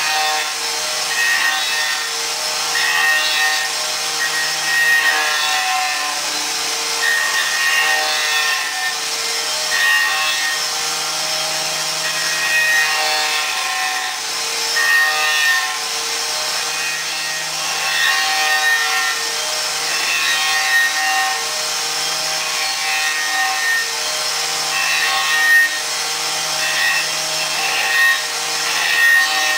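Porter Spindle Carver's rotary cutter running at speed and grinding into a wooden axe-handle blank: a steady machine whine with a rough rasp of wood being cut. The whine's tones come and go every second or two.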